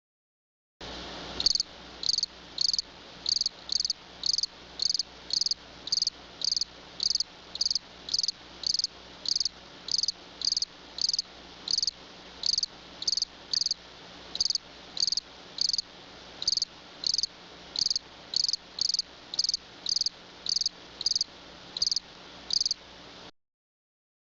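A cricket chirping steadily, about two short high chirps a second, over a faint steady low hum.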